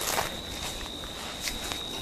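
Hands rubbing and pressing on skin and hair during a head and body massage, with two short snaps about a second and a half in.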